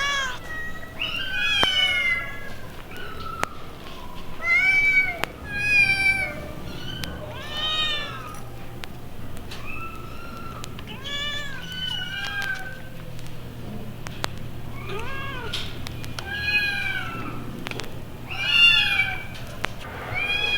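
Several kittens meowing over and over, short high mews that arch up and down and often overlap, played from a 1960s vinyl sound-effects record with a few sharp surface clicks and a low steady hum beneath.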